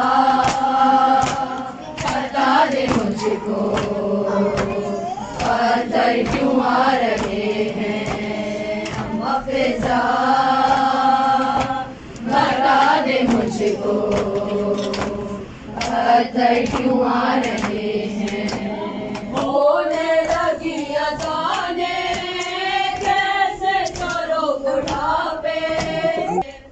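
Women's voices chanting a noha, an Urdu Muharram mourning lament, sung together with long held notes. From about twenty seconds in, the tune sits higher.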